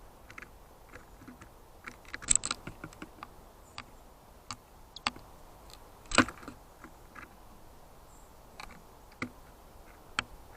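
Great tit pecking and tapping at the trail camera's housing: irregular sharp taps, with a quick flurry about two seconds in and the loudest single tap about six seconds in.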